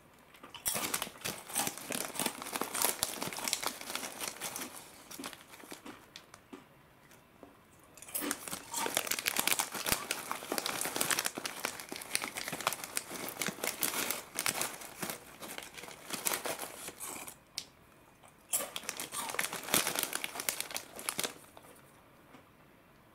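Foil-lined snack bag crinkling as fingers dig through the small crackers inside, in three bursts of rustling separated by short pauses.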